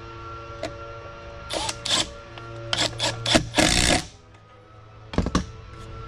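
Cordless driver tightening the T25 Torx screw on the condenser fan blade hub of a Coleman Mach 8 RV air conditioner. It runs in several short bursts, then one longer burst of about half a second near four seconds in, followed by two light clicks.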